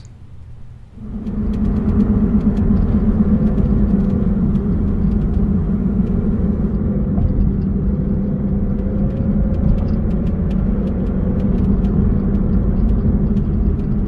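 A 2015 Smart electric car driving, heard from inside the cabin: after about a second a steady low rumble with a quick pulsing and a faint wavering tone above it sets in. It is the unexplained thumping noise tied to motor torque, which remains even with the drive inverter's lower power half and wiring replaced.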